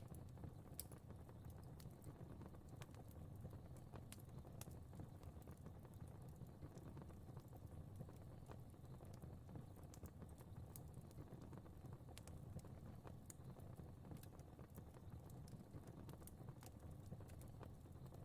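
Fireplace fire crackling faintly: irregular small snaps and pops over a soft, steady low rumble of flames.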